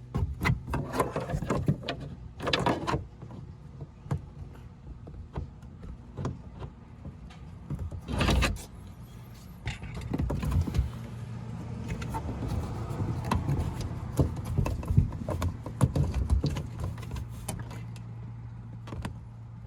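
Plastic interior trim of a car's C-pillar being pried at with a trim tool: scattered plastic clicks, scrapes and knocks, with one louder knock about eight seconds in. A low steady hum comes in about ten seconds in.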